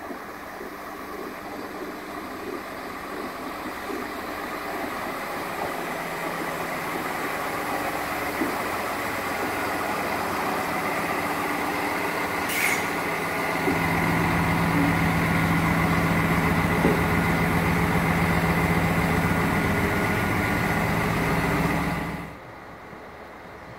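X73500 diesel railcars pulling into the station, the engines growing louder as they draw alongside and then holding a steady diesel hum, with a short sharp sound about halfway through. The sound cuts off suddenly shortly before the end.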